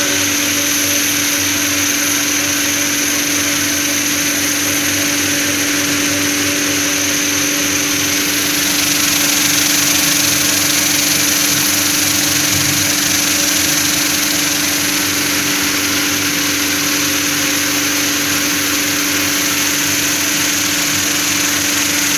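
120-litre vibratory finishing machine running: a steady motor hum under a dense, even rattle of metal parts churning with red cone-shaped and grey cylindrical polishing media in the bowl.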